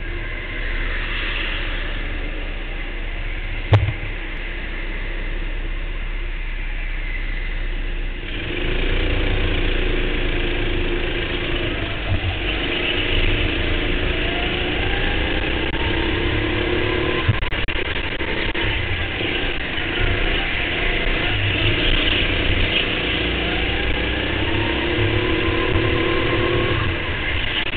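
Go-kart engine heard from on board the kart, running evenly at first and then, about eight seconds in, getting louder and climbing and falling in pitch again and again as the kart accelerates and brakes through the corners. A single sharp knock sounds about four seconds in.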